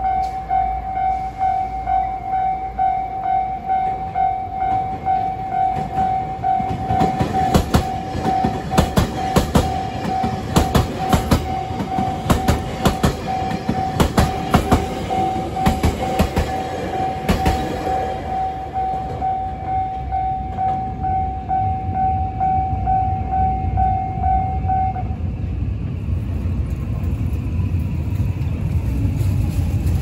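Japanese level-crossing warning bell ringing in a steady, regular ding-ding while a limited express train passes, its wheels clacking rapidly over the rail joints from about 7 to 18 seconds in. The bell stops about 25 seconds in, leaving low street-traffic rumble.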